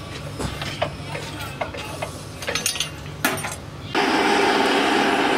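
Sharp metallic clicks and clanks of a hand-lever metal shear working a steel strip, then from about four seconds in a loud, steady rushing noise of a forge's fire and air blast.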